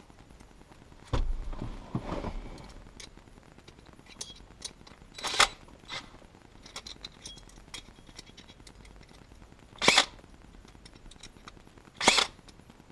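Hand work on a car's shifter assembly: tools and metal parts being handled, with a dull thump about a second in, scattered small clicks, and three short, sharp noises spread through the rest.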